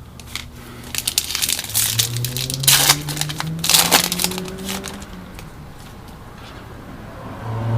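Foil wrapper of a baseball card pack crinkling and tearing open, with sharp crackles and rustling that die down in the last few seconds.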